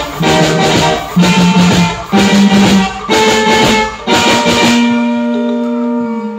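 Live band music with electric guitar, bass guitar and drums, hitting chords together in short punches over a rising bass line. About three-quarters of the way through, the drums drop out and a held chord rings on, its bass note sliding down near the end.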